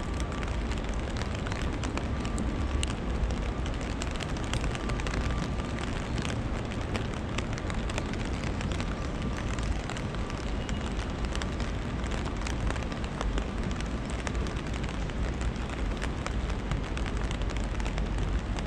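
Rain falling: a steady hiss with many scattered sharp ticks of drops, over a low rumble.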